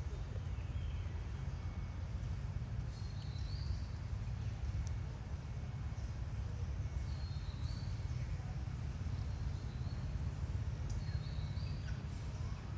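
Steady low outdoor background rumble, with short high chirping calls repeating about every four seconds.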